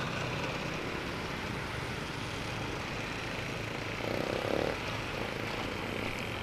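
Steady low engine hum of slow, jammed motor traffic, scooter and truck engines running at low speed, with a brief louder tone about four seconds in.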